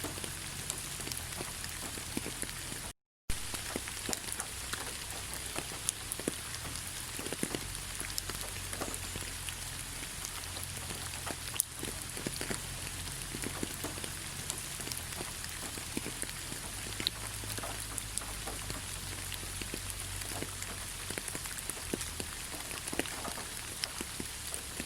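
Steady rain falling, with many individual drops ticking sharply on surfaces over an even hiss. The sound cuts out completely for a split second about three seconds in.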